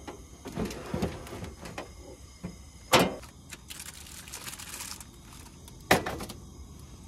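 Aluminium foil packet crinkling and rustling as it is handled and lifted onto a camp stove's grate. Two sharp knocks, about three seconds in and near the end.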